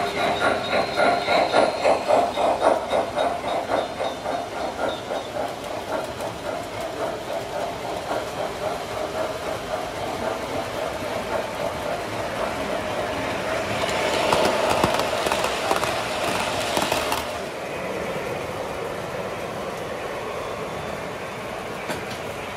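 O gauge model train cars rolling past on the layout track, their wheels clicking fast and evenly over the rail joints, loudest at first and fading. About two-thirds of the way in, a louder rushing hiss rises for some three seconds and cuts off suddenly.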